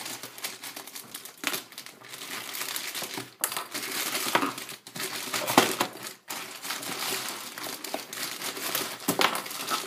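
Wrapping paper being torn open and crumpled by hand from a gift box: a continuous crinkling rustle full of sharp crackles.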